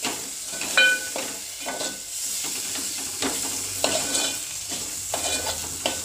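Onion and ginger-garlic-coriander-stem paste sizzling in hot oil in an aluminium pot while a metal spoon stirs it, scraping and knocking against the pot several times with a short metallic ring.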